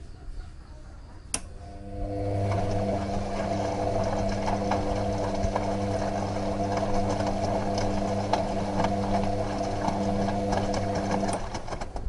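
Washing machine: a sharp click a little over a second in, then the motor starts and runs with a steady hum and a fast scatter of light ticks and rattles, stopping abruptly shortly before the end.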